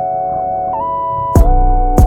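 Background music: sustained keyboard-like chords that shift to a new chord about three-quarters of a second in, with a heavy drum beat entering near the end.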